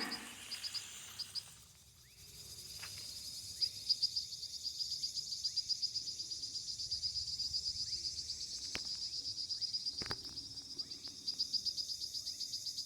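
Crickets chirping steadily in fast, evenly pulsed trills, with two sharp clicks about nine and ten seconds in.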